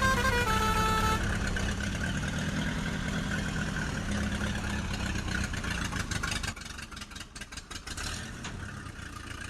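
A vehicle engine sound effect running steadily, then dropping in level about two-thirds of the way through, with some clicking after the drop. It follows a short tune of stepped notes that ends about a second in.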